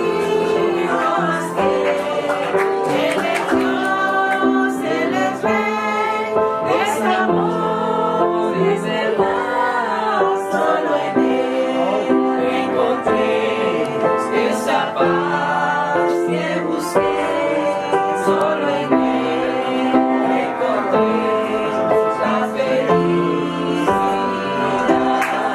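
Background music with a singing voice and a steady beat.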